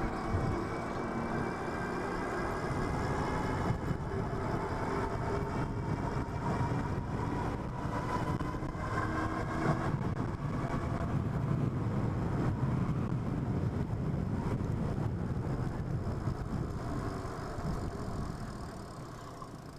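Riding noise from a Super73 S2 electric bike on the move: steady wind and tyre rumble, with a faint whine that slowly rises and falls.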